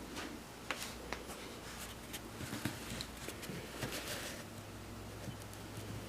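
Faint handling noise: a scattered run of small clicks and rustles, busiest in the first two-thirds, over a low room hum.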